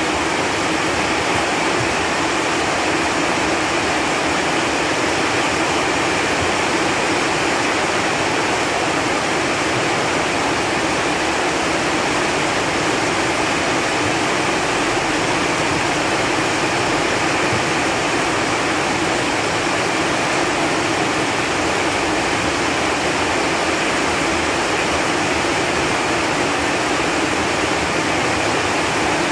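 Steady rain falling on leaves, an even, dense hiss with no single drops standing out.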